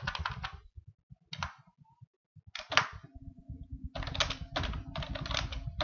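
Computer keyboard typing in short bursts of key clicks with pauses between. The clicking turns into a steady run of keystrokes about four seconds in.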